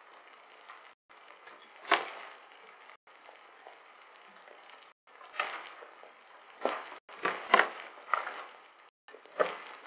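Hailstorm: irregular sharp knocks of hailstones striking hard surfaces close to the microphone, one about two seconds in and a cluster of them in the second half, over a steady hiss of falling precipitation. The audio cuts out briefly about every two seconds.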